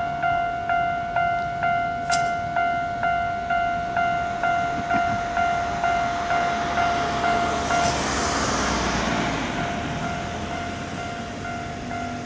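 Japanese railway level-crossing warning bell ringing, a repeated ding a little under twice a second over a steady tone. About seven seconds in, a passing train adds a rush of noise that swells and fades while the bell keeps ringing.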